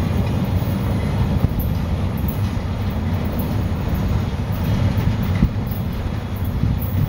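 Loaded log cars of a freight train rolling away on the rails: a steady low rumble of wheels on track with a faint clickety-clack, easing slightly toward the end.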